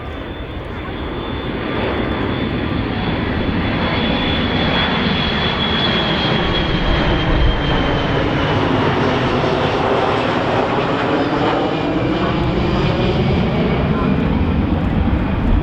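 Boeing KC-135R Stratotanker's four CFM56 turbofan engines as the tanker flies past: a broad jet rumble that builds over the first couple of seconds, then holds loud. A high whine over it drops in pitch about halfway through as the aircraft goes by.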